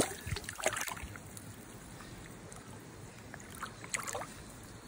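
Water splashing and sloshing as a bass is released by hand into shallow water and kicks free. The loudest splashes come in the first second, with a few smaller ones near the end.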